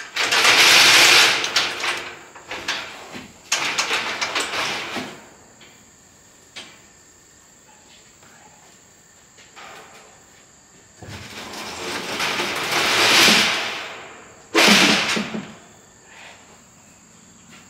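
A heavy bandsaw frame on furniture dollies scraping and rolling across a metal trailer deck in several long grinding bursts, the third swelling and fading over a few seconds. Near the end a sudden clunk as the dolly wheels drop into the gap between the trailer bed and the tailgate.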